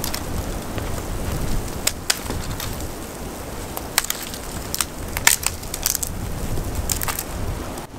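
Thin branches of a bare tree being snapped and broken off by hand: a scattered run of sharp cracks and crackles, thickest in the second half, over a low rumble of wind on the microphone.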